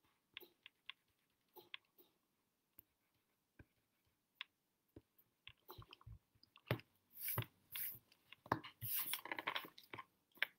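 An eraser scratching and rubbing on drawing paper in short, scattered strokes, then louder rasping sweeps of a hand brushing across the paper, from about seven seconds in to near the end.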